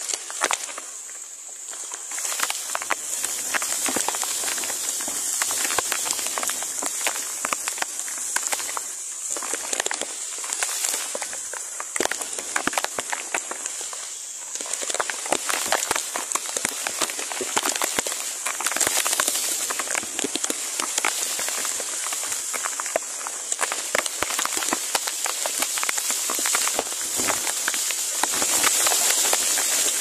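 Rain pattering on leaves and the nest: dense, irregular drops over a steady high hiss, easing briefly a couple of times.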